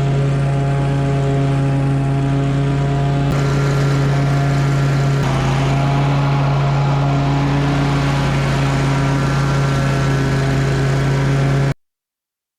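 Pickup truck engine running at a steady, constant speed, a deep even tone with no revving. It cuts off abruptly near the end.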